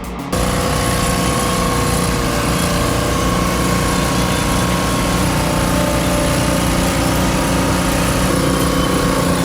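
Heavy machine engine running steadily, with a steady high-pitched whine over it; it starts suddenly just after the start.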